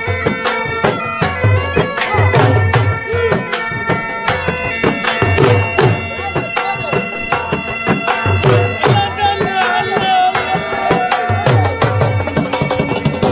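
Folk music: a reed wind instrument playing held, droning notes over a steady drum beat.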